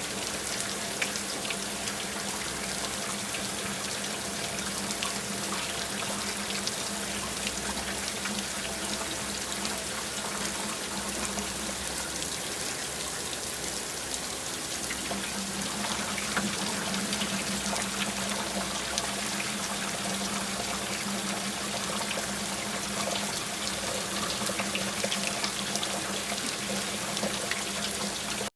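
A steady rushing, water-like noise with scattered crackles and a low hum underneath, which fades for a few seconds midway. It stops abruptly at the end.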